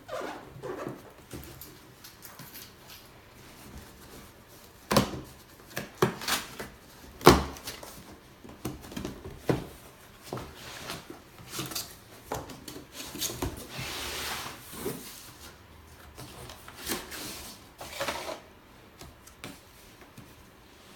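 Cardboard guitar box and its packing being opened and handled: irregular knocks, scrapes and rubbing, with a sharp knock about seven seconds in and a longer rustle around fourteen seconds.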